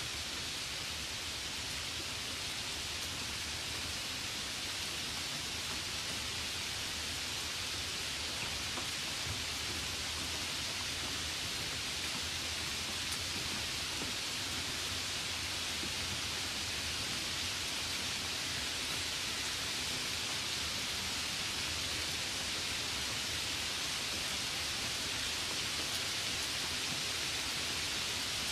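Steady rain falling: an even, unbroken hiss with no separate drops or thunder standing out.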